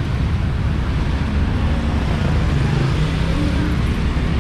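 Steady low rumble of city street traffic heard from a moving, open-sided electric bike cab, with engines of motorcycles and cars running close alongside.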